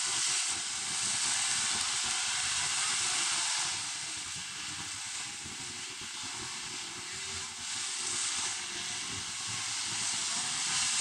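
A pack of dirt-track modified race cars running flat out around the oval, their engines blurring into a dense rushing noise through a phone microphone. It eases off for a few seconds in the middle and swells again near the end as the cars come back round.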